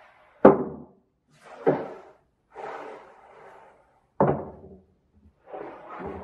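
Long solid-wood boards being pulled off a lumber rack and laid on a wooden workbench. Two sharp wooden knocks, about half a second in and again about four seconds in, with wood scraping and sliding on wood in between.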